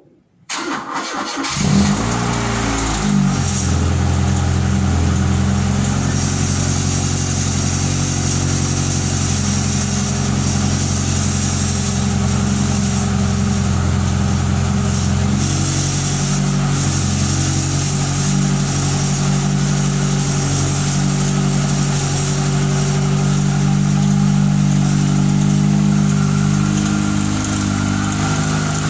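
Fiat Tempra 2.0 16V four-cylinder engine cranked from cold, catching after about a second, then idling steadily with a very loud exhaust. The running engine carries an abnormal noise that the owner can't yet place; he suspects a rod bearing, a piston, or simply some bearing.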